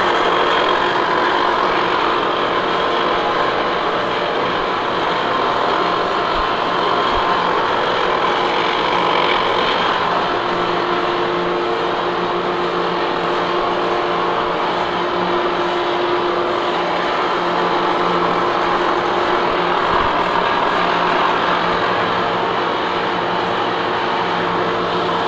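Lucas horizontal boring mill running a slow, heavy-feed face-milling pass across a heat exchanger plate: a steady mechanical drone with several held tones, and an extra tone that comes in about ten seconds in and fades out around seventeen seconds. The cut is running smoothly, with almost no vibration.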